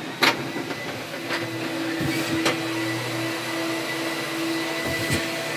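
Pneumatic vacuum home elevator running as it rises, a steady whoosh like a big vacuum cleaner with a hum that settles in about a second in. A few light clicks and knocks from the car.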